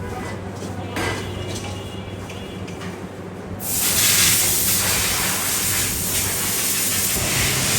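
A steady low hum with a few light clicks, then about three and a half seconds in a loud spraying hiss starts suddenly and keeps going.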